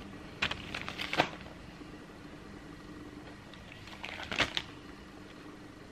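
Clear plastic zip bag of spare laces and tags crinkling as a trainer is handled and turned, in two short bursts, about half a second in and again about four seconds in.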